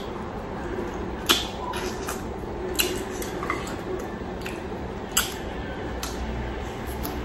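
Close-up eating sounds: chewing and wet mouth smacks while chicken and rice are eaten by hand, with three sharp smacks at about one, three and five seconds in.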